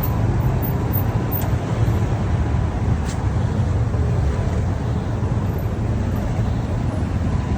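Steady low rumble of a road vehicle in motion, with a continuous drone and no distinct events.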